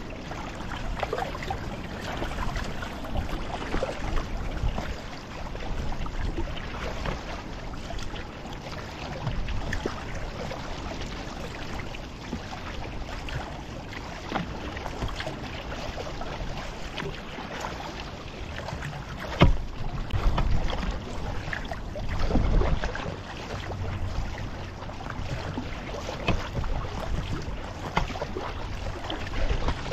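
Water splashing and lapping against an Itiwit X500 kayak's hull under paddle strokes, with wind on the microphone. There is a single sharp knock about two-thirds of the way through.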